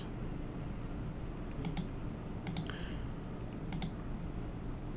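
Computer mouse clicking: three clicks about a second apart, each a quick double tick of press and release, over a low steady hum.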